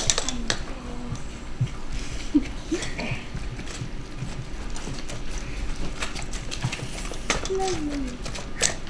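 A spoon stirring and scraping a stiff meatloaf mixture in a mixing bowl, with scattered clicks and knocks of the utensil against the bowl, and faint murmured voices.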